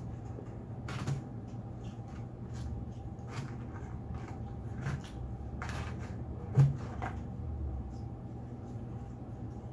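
Mukbang eating and food-handling noises: a scattering of small clicks and knocks from food containers and chewing, with one sharp knock about two-thirds of the way through, over a steady low hum.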